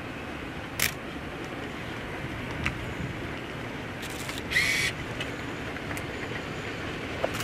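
DR class 44 three-cylinder 2-10-0 steam locomotive approaching at the head of a long train of loaded hopper wagons, a steady rumble. A sharp click comes about a second in, and a brief high-pitched squeal about halfway.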